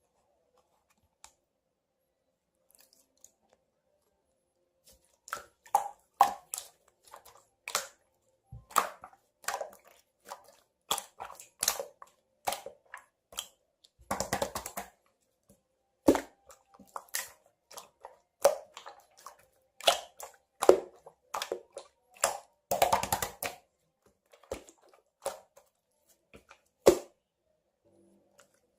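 Clear blue slime being worked by hand, giving sticky pops and clicks at irregular intervals, starting about five seconds in. Twice it breaks into a short run of rapid crackling pops.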